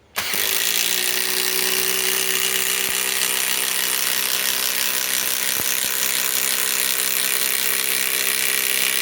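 Cordless compact impact driver hammering steadily and without a break while it drives a 5-inch ledger lock structural screw.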